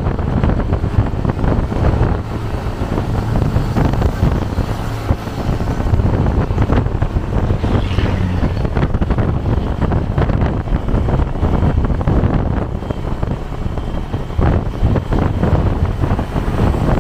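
Wind buffeting the microphone over the steady rumble of a moving road vehicle and traffic.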